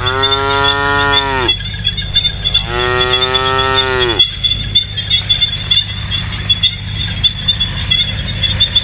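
A cow mooing twice, two long calls of about a second and a half each that drop in pitch at the end, over a steady high chirring of insects.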